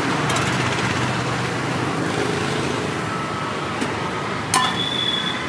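Steady road traffic noise. About four and a half seconds in, a single sharp metallic clink rings briefly.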